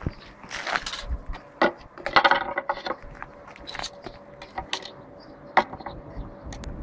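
Irregular light clinks and taps, like small metal objects jangling, over a faint steady hum.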